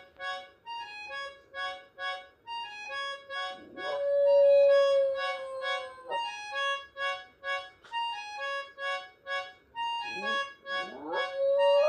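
A Shiba Inu howling along with music of short, evenly repeated notes. One long howl starts about three and a half seconds in, rises, holds for about two seconds and then falls away; near the end several more rising howls join the music.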